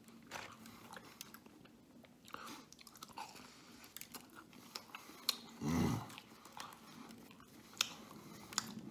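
A man chewing a mouthful of garlic knots dipped in marinara sauce, with many small wet mouth clicks. About six seconds in there is a short, louder low sound.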